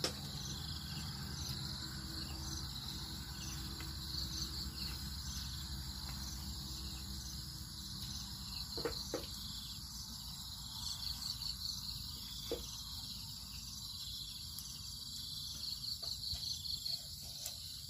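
Steady high-pitched chorus of crickets, with a slight regular pulse, and a few soft clicks now and then.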